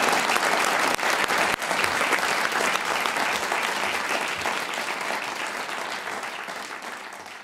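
Studio audience applauding, the applause gradually dying away.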